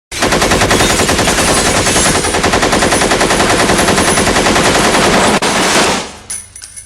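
Automatic gunfire: one long, rapid, continuous burst of evenly spaced shots, with a brief break shortly before the end, then a few last shots fading out.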